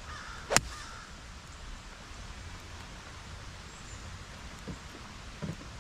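A golf club striking a teed ball: one sharp crack about half a second in, a tee shot.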